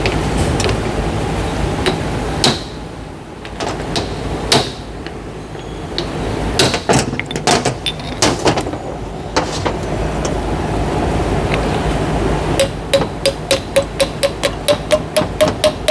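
Irregular metal knocks and clanks from parts being handled on a workbench, over a steady low hum. Near the end comes a fast, even run of ringing taps, about four a second, whose pitch creeps slightly upward.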